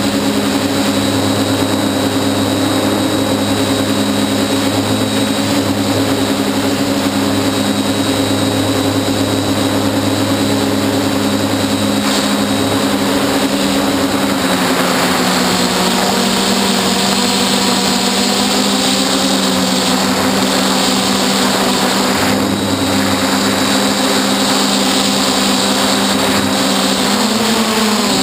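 Hexacopter's six electric motors and propellers humming steadily in several pitches, which shift slightly about halfway through and glide again near the end as the motor speeds change.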